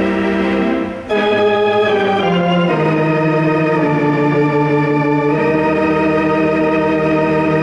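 Theatre organ playing slow, held chords that change about a second in and again near three seconds, with a deep bass note coming in at about five seconds.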